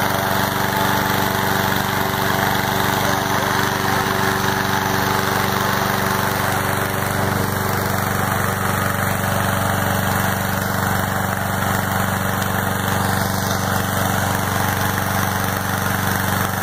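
Engine-driven hot air balloon inflator fan running steadily, blowing cold air into the balloon envelope during cold inflation. The engine note is even and unchanging.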